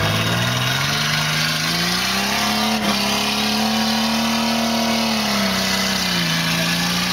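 Trial 4x4's engine revving hard under load as the vehicle claws up a steep dirt bank: the pitch climbs over the first couple of seconds, holds at high revs, then drops back near the end. A single knock is heard about three seconds in.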